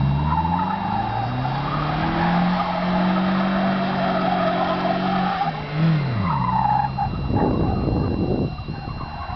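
Toyota pickup engine revving up and held at high revs while the truck slides in donuts, its tyres hissing as they scrub across the hard dry lakebed. About five and a half seconds in the revs drop sharply and climb again, and a rough rush of noise follows near the end.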